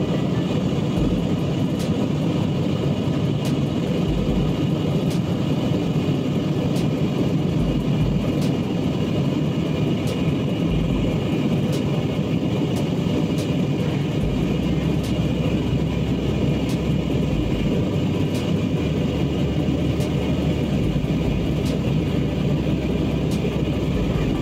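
Steady cabin noise of an Airbus A320-200 in flight, the even rush of its jet engines and the airflow past the fuselage heard from a window seat.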